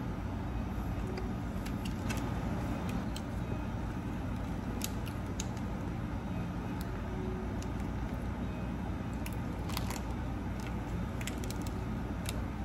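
Scattered light crackles of a paper-and-leaf food wrapper being handled and peeled back while eating, over a steady low rumble of indoor background noise.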